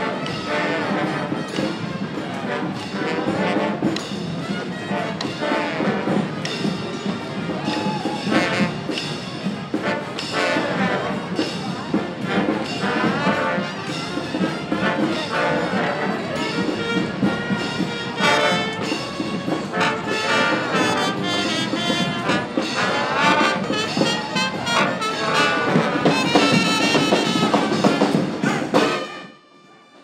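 Street brass band playing, with trumpets and trombones, the music breaking off suddenly near the end.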